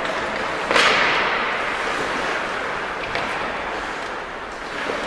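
Ice rink game noise: a sharp crack about a second in, followed by a swell of hissing noise that fades over about a second, and a smaller knock about three seconds in, over a steady hiss of rink ambience.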